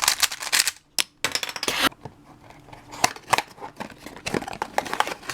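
Rustling of packaging about a second in, then a run of light, irregular plastic clicks from handling the DaYan Pyraminx puzzle.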